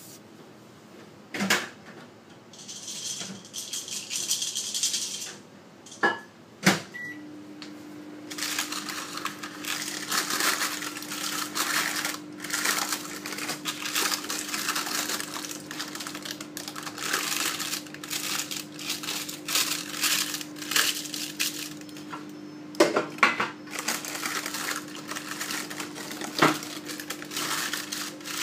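Baking-paper and foil linings of brownie tins crinkling and crackling almost without pause as hands handle them, broken by a few sharp knocks. A steady low hum comes in about seven seconds in.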